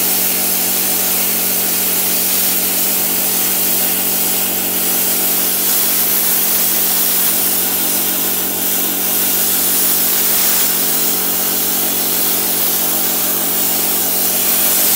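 Tenya Cut60C plasma cutter's arc cutting through 12 mm steel plate: a loud, steady hiss over a low hum, running without a break in 4T latch mode.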